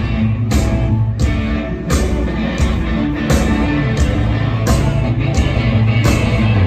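Rock band playing live: electric guitars, bass guitar and drums, with a drum beat striking about every two-thirds of a second. It is an instrumental passage with no singing.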